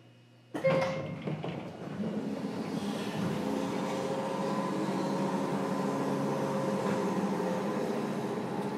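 Interior of a JR Kyushu 103 series electric train's motor car: a sudden loud clunk about half a second in, then the car's steady running noise and hum with several held tones, getting louder over the next couple of seconds.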